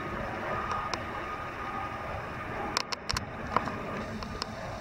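Distant jet transport aircraft flying over, a steady even rumble with a faint whine, mixed with wind on the microphone. A few sharp clicks come a little past the middle.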